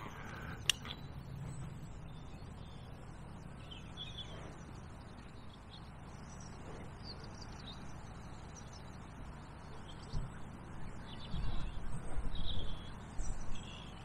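Faint, scattered bird chirps over quiet riverside background noise. A sharp click comes under a second in, and a few low rumbling bumps are heard in the last four seconds.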